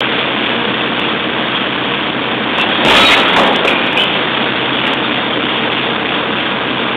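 Pile-driving rig's engine running steadily, with one louder sudden strike about three seconds in.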